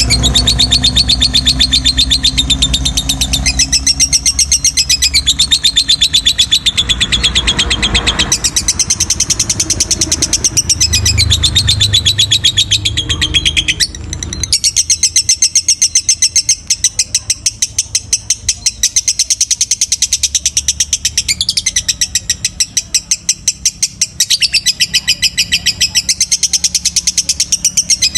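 Lovebird singing a long, unbroken, very fast high-pitched chattering trill, with only a brief break about halfway through. This long-duration song is the kind prized in Indonesian songbird keeping.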